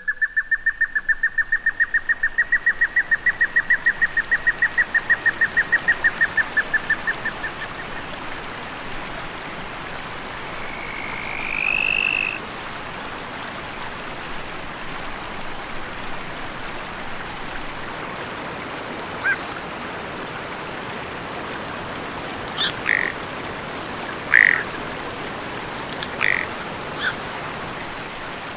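Wild animal calls: a rapid pulsed trill of about seven pulses a second lasting some seven seconds, then a single rising-and-falling whistle near the middle and a few short chirps near the end, over a steady background hiss.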